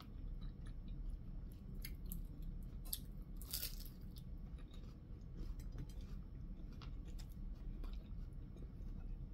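A bite into a crispy fried lumpia spring roll, with one loud crunch about three and a half seconds in, then chewing with small crunching clicks.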